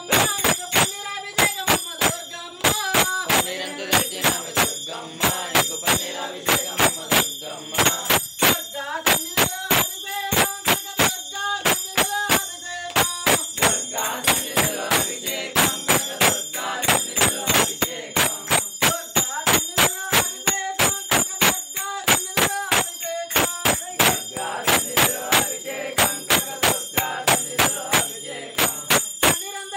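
Devotional singing over a fast, even beat of hand claps, with bells ringing steadily.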